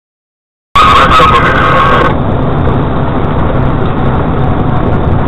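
Silence, then the sound cuts in abruptly about a second in: a vehicle's steady driving noise picked up by a dashcam inside it, with engine and road rumble running evenly.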